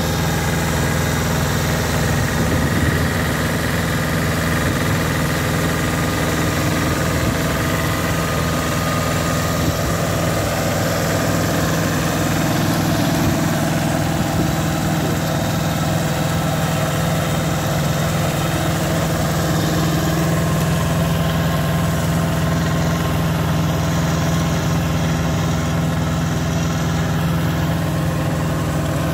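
Shibaura SL1743 compact tractor's diesel engine running steadily under load while driving a Shibaura RE2124 rotary tiller through the soil.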